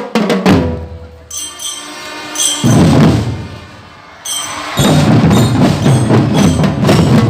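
Drum band playing: percussion hits, then a break with bell-like ringing notes and a held chord, and dense fast drumming comes back in about five seconds in.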